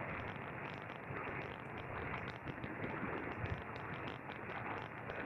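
Eton E1 XM shortwave receiver tuned to 7114 kHz on the 40 m amateur band, its speaker giving a steady hiss of band noise with frequent crackles of static and no voice coming through.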